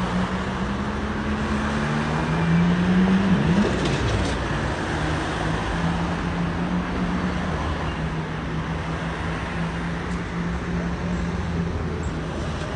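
Road traffic with a vehicle engine humming. Its pitch rises from about two seconds in, drops sharply at about three and a half seconds, then holds steady.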